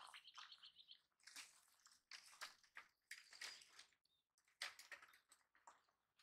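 Faint, irregular clicks and crunches of a baby macaque chewing food, with a short, high, pulsing chirp in the first second.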